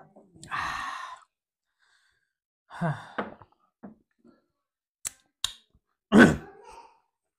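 A long breathy exhale, a sigh straight after a drink of water. Then a brief hum, two sharp clicks about half a second apart, and near the end a short, louder vocal sound.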